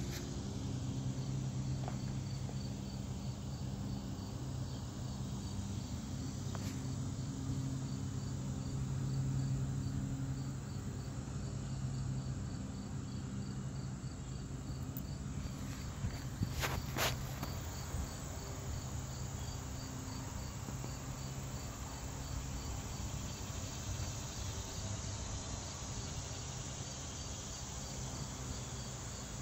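Insects chirping in a steady, evenly pulsed rhythm of about two chirps a second, over a steady low hum. A couple of short clicks about 17 seconds in.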